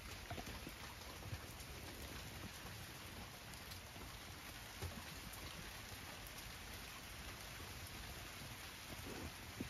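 Steady light rain falling, with a few sharper taps of drops now and then.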